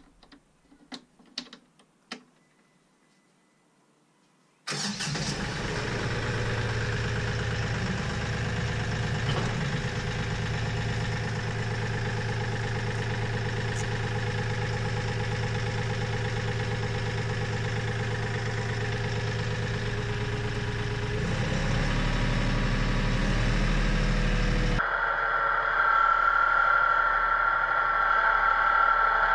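A few faint clicks, then an engine that starts abruptly about five seconds in and runs steadily. Near the end it gives way suddenly to another steady engine sound with a high whine.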